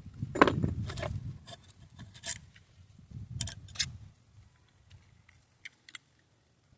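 Clicks, ticks and scrapes of small pistol parts being handled and worked by hand, sped up to double speed. A cluster of loud clicks comes about half a second in, then scattered lighter ticks thin out toward the end.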